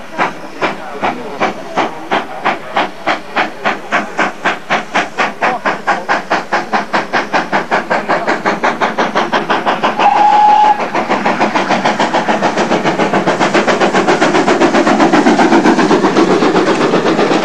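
Great Western steam tank locomotive working hard as it accelerates, its exhaust chuffs quickening from about two to about five a second and growing louder as it draws near. A short blast on the steam whistle comes about ten seconds in.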